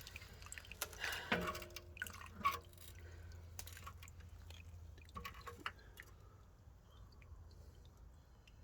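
Coolant water dripping and trickling as the car's cooling system drains with the radiator removed, with scattered light clicks and knocks.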